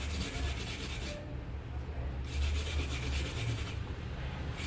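Brush scrubbing a phone's circuit board wet with benzene, in spells of about a second or so with short pauses between, cleaning off leftover solder paste around the LCD connection.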